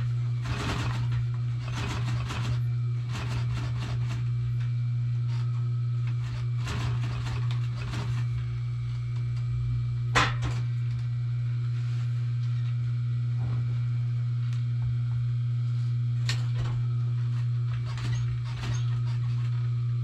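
Industrial sewing machine with its electric motor humming steadily, with several short runs of stitching in the first eight seconds and a single sharp click about ten seconds in.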